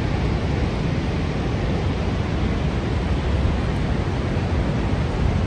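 Steady rushing roar of the Horseshoe Falls, an even noise heaviest in the low end.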